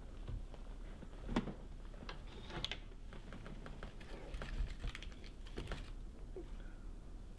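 Light, irregular clicks, snaps and rustles of hands working at the stems and leaves of a potted flowering plant, with a louder knock about one and a half seconds in.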